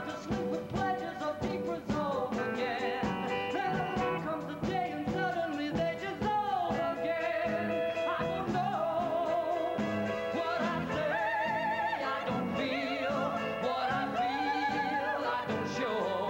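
Male solo singer in a rock style holding long, high notes with strong vibrato, over orchestral and band accompaniment.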